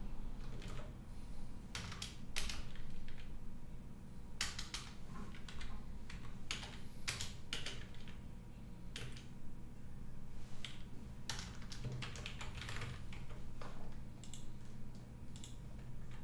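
Computer keyboard being typed on in short, irregular bursts of keystrokes.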